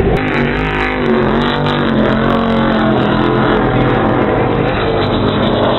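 Offshore racing powerboat engines running at speed, a loud steady drone that dips slightly in pitch about a second and a half in.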